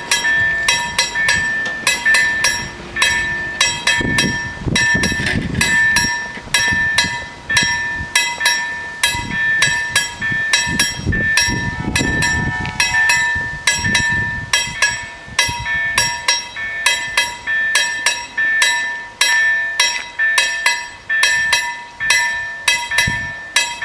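Level-crossing warning bells ringing in a fast, steady run of metallic strikes while the crossing's red lights flash and its barriers are lowered: the warning for an approaching train.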